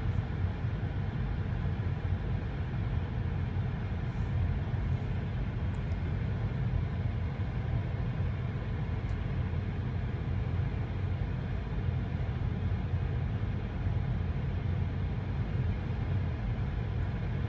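Steady low rumble and hiss of a car's interior, even throughout, with a few faint light ticks.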